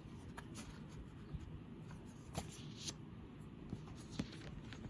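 Sheets of patterned craft paper being handled and turned over: a few short, soft rustles and taps over a faint background.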